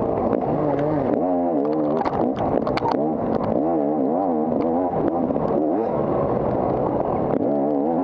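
250 cc dirt bike engine during an off-road race, its revs rising and falling over and over as the throttle is worked, with scattered knocks and clatter throughout.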